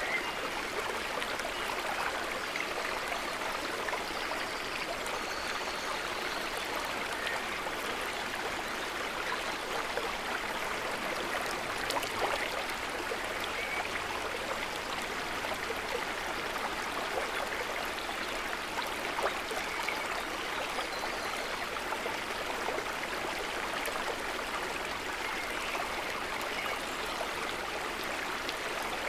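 River water running, a steady rushing noise with no breaks.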